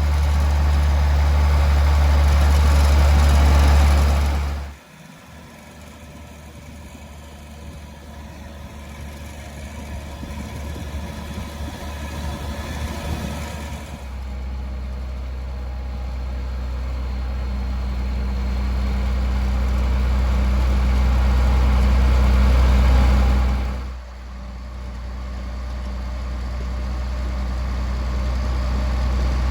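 A vehicle engine running with a steady low drone. The sound drops off sharply about five seconds in and again near the end, each time building back up gradually.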